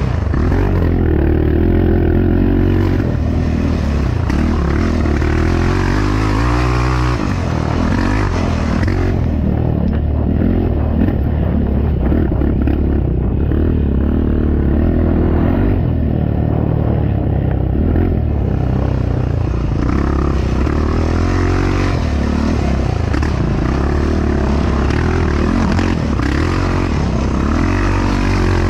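Yamaha YFZ450R sport ATV's single-cylinder four-stroke engine running hard under racing load, its revs rising and falling with the throttle throughout.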